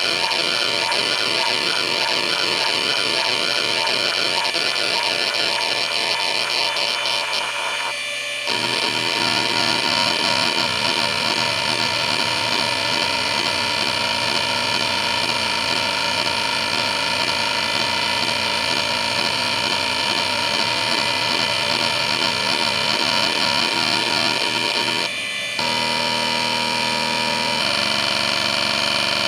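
Seagate Barracuda 9LP ST39173W SCSI hard drive, a 7,200 rpm ball-bearing drive, whining steadily while its heads seek without pause through hdmotion test patterns. The seek chatter changes character about eight seconds in and again near the end, each time after a brief drop, as the program switches to a new head-movement pattern.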